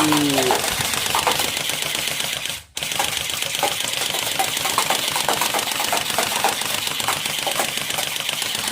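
Toy AK-47 gun firing in long automatic bursts: a fast rattle of clicks over a hiss. It cuts out briefly a little under three seconds in, then starts again.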